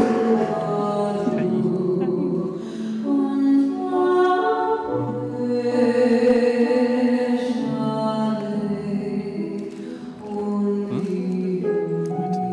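Music: a choir singing slowly in long held notes.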